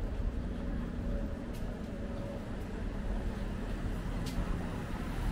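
City street traffic: a steady low rumble of passing vehicles, with two faint sharp ticks.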